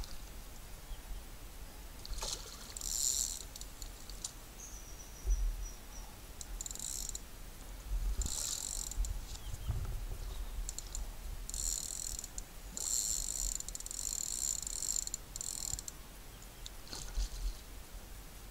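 Fishing reel clicking rapidly in several bursts, some over two seconds long, while a hooked carp is played at the bank.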